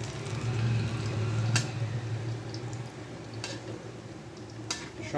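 Palm-fruit fritters sizzling steadily in hot oil in a steel wok over a low hum, with three sharp clicks of a spatula against the wok as they are turned.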